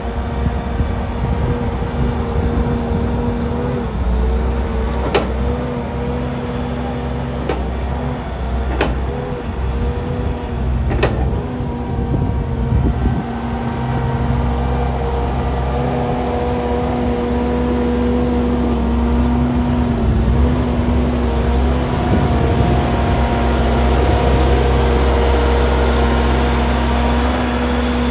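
JCB 155HD skid steer loader's diesel engine running steadily with a constant hum, a few sharp clicks or knocks in the first half, and the engine getting somewhat louder later on.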